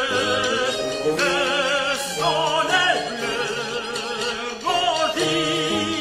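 Anthem music: a singer in operatic style holds notes with strong vibrato, moving to a new note about every second, over sustained instrumental accompaniment.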